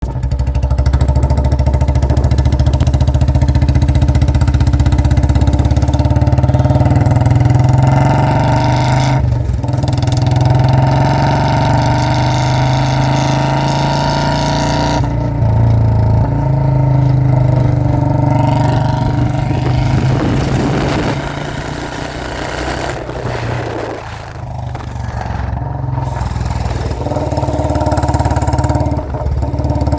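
Royal Enfield Bullet 350's single-cylinder engine running loud through a modified exhaust, its note changing several times: a brief drop about nine seconds in, and a quieter stretch about two-thirds of the way through.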